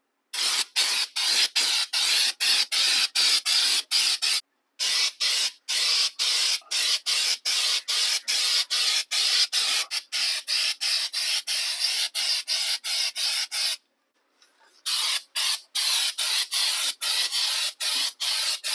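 Aerosol can of 3M undercoating spraying in short, rapid hissing bursts, about three a second, with two brief pauses.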